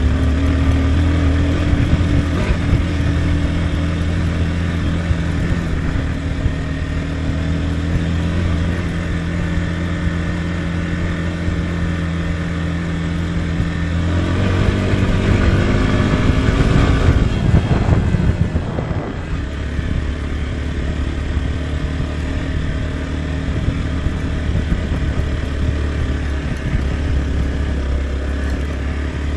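Motorcycle engine running steadily under way. Between about 14 and 19 seconds in, the engine note shifts and slides up and down, then settles back to a steady note.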